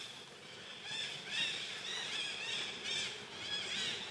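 An animal calling: a quick run of short, high-pitched calls, each rising then falling, about three a second, starting about a second in.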